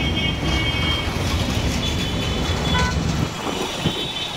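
City street traffic: a steady rumble of passing vehicle engines, with short horn toots in the mix.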